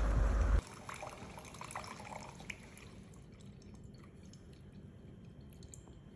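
Wind buffeting the microphone, cut off abruptly about half a second in. Then faint liquid dripping: scattered light ticks and small drops over a soft hiss.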